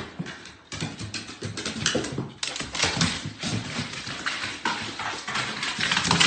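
A dog's paws and claws knocking and scraping on hardwood stairs in a run of irregular thumps and clicks.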